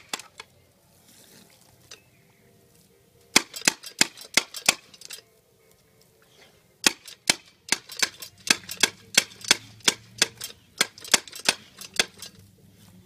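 A dog snapping its jaws at the jet from a step-on dog water fountain: runs of sharp clacks, several a second. One run comes about three seconds in and a longer one from about seven seconds in.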